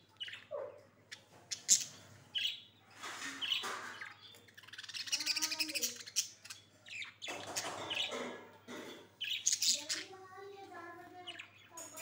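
Budgerigars chirping in the cage: a string of short, high chirps with longer, pitched calls around the middle and again near the end.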